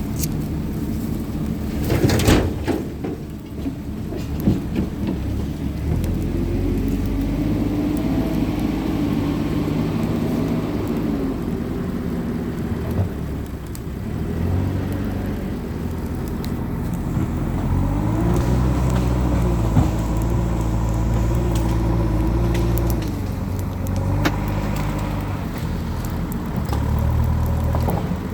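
Wood bonfire crackling with scattered sharp pops, under the drone of a motor engine whose pitch slowly wavers up and down. A louder burst of noise comes about two seconds in.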